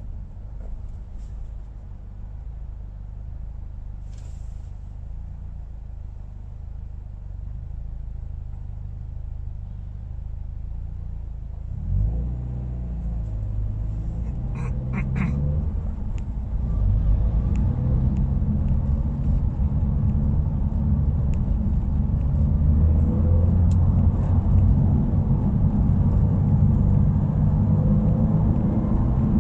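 Subaru WRX's turbocharged flat-four exhaust heard while driving: a low, even rumble that steps up about twelve seconds in and grows louder from about sixteen seconds as the car accelerates. The muffler's abnormal noise has been fixed.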